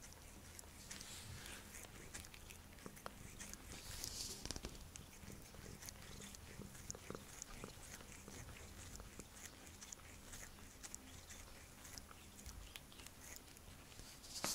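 Blue point Siamese cat grooming itself right by the microphone, licking its paw with faint small wet clicks and brushes of fur.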